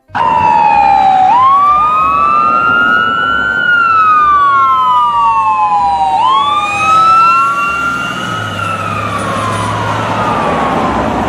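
Wailing emergency-vehicle siren: two overlapping siren tones, each jumping up quickly in pitch and then falling slowly, in cycles about five seconds long. The sound cuts in and cuts off abruptly.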